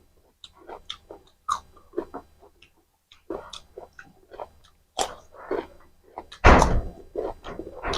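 Close-miked chewing and biting while eating mutton curry with rice, in irregular short bursts of mouth sounds, with a louder burst and a low thump about six and a half seconds in.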